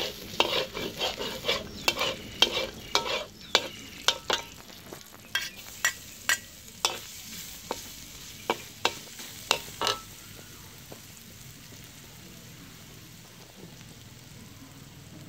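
Metal spatula scraping and tapping against a large metal wok as diced pork fries with a light sizzle. The scraping stops about two-thirds of the way through, leaving only the faint sizzle.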